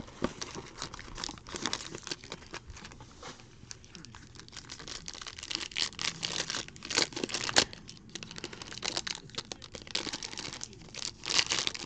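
Plastic wrapping on a trading-card box being torn open and crinkled, in irregular crackling bursts with a few sharper snaps.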